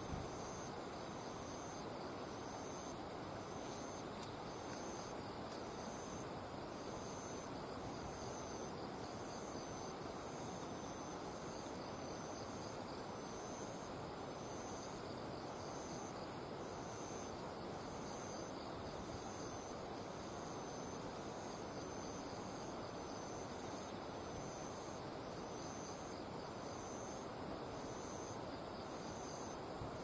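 Insects chirping in summer fields and paddies: a high pulsed call repeating about once a second over a steady, higher-pitched insect drone, with a soft even background hiss.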